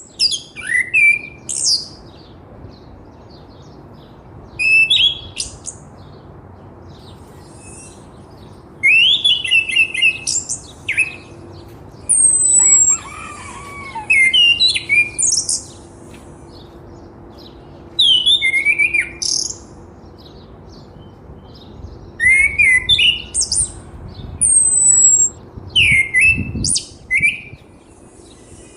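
Small birds chirping and twittering in bursts of a second or two with short pauses between, made of quick high notes that slide downward.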